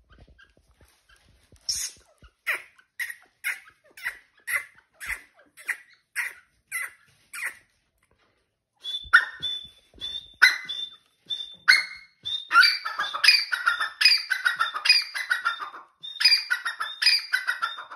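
Grey francolin pair calling: a run of short, evenly spaced calls about two a second, then after a brief pause a louder, denser stretch of overlapping calls with a held high note and falling notes.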